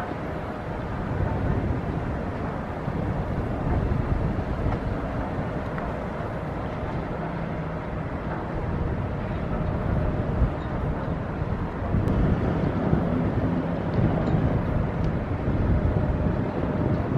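Steady low drone of a 1966-built inland motor cargo ship's engine as it manoeuvres alongside the quay, mixed with wind rumbling on the microphone.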